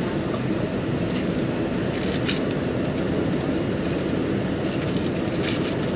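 Steady cabin noise inside a Boeing 767-300 on approach: a low, even rumble of its Rolls-Royce RB211 engines and the airflow over the fuselage, heard from a seat over the wing.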